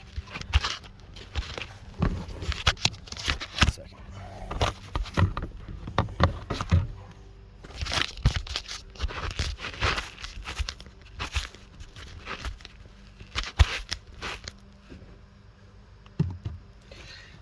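Handling noise of car interior parts: rustling and crinkling with irregular clicks and knocks as pieces are moved about.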